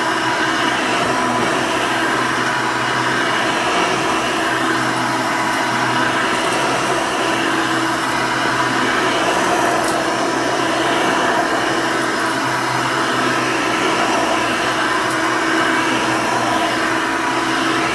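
Hoover Elite II upright vacuum cleaner running steadily on carpet, its motor holding one constant pitch.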